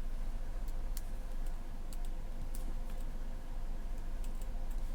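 Small scissors snipping a planner sticker: a few faint, irregular clicks over a steady low hum.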